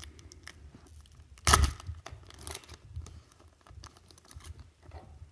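A trading-card pack's wrapper being torn open, with one loud rip about one and a half seconds in, amid short bursts of crinkling and rustling.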